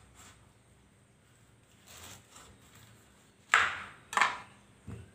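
Kitchen knife chopping through a tender green jackfruit and striking the wooden cutting board: two sharp cuts a little under a second apart, then a soft low thud near the end.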